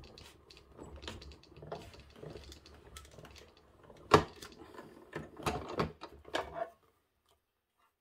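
Hand-cranked die-cutting machine being turned, the plate stack with a letter die and thick glitter paper rolling through the rollers with irregular clicks and knocks. The loudest knock comes about four seconds in, and the sound cuts off abruptly about a second before the end.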